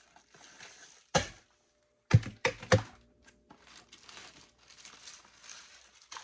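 Household items knocking down onto a hard surface as a cabinet's contents are sorted: one knock about a second in, then three quick knocks a little after two seconds in, followed by light crinkling of packaging.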